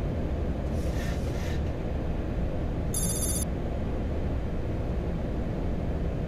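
Boeing 737-800 autopilot disconnect warning: a short, high electronic tone about three seconds in that lasts under half a second, over the steady rush of air and engine noise in the flight deck.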